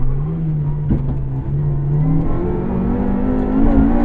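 Honda Civic rally car's engine, heard from inside the car, running at steady revs and then revving up as the car accelerates from about halfway through.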